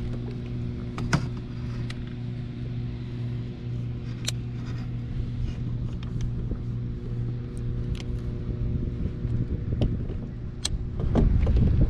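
Steady low mechanical hum with an even-pitched drone throughout, with a few sharp light clicks and knocks scattered across it. Louder low rumbling noise comes in near the end.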